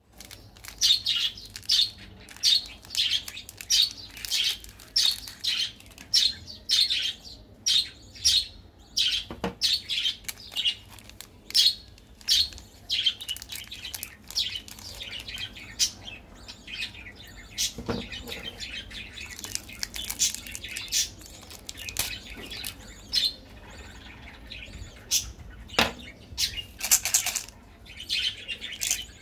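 Small birds chirping over and over, at about one to two calls a second at first, then more scattered. A few light knocks come in between.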